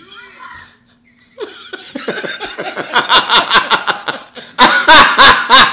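A man laughing hard. Rapid bursts of laughter start about a second and a half in and build, growing louder, with the loudest bursts near the end.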